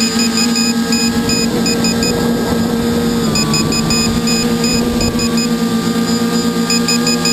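Multicopter's electric motors and propellers whining in flight, heard from the GoPro on the craft: a steady hum of several held tones that shift slightly in pitch about three seconds in. Groups of rapid high-pitched pulses come and go over the hum.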